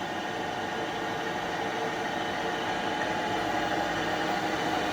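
Trak DPM5 CNC bed milling machine running a program: the spindle turns and the axis drives move, making a steady machine whir with several faint steady tones that grows slightly louder.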